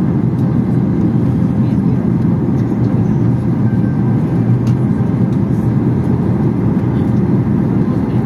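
Steady cabin noise inside a Boeing 737 in descent: its turbofan engines and the rush of air over the fuselage as an even, low rumble with no change.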